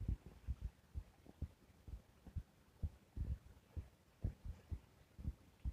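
Pen writing on a notebook page, heard as faint, irregular low thumps from the strokes, a few a second.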